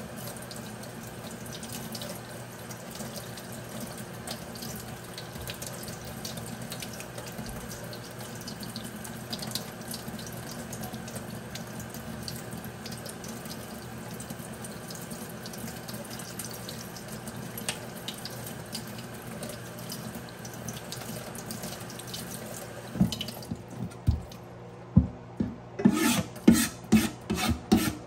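Kitchen tap running into a stainless steel sink while conch meat is rinsed under the stream, with small splashes and clicks. Near the end the water stops and a knife starts striking a bamboo cutting board in quick knocks, two or three a second.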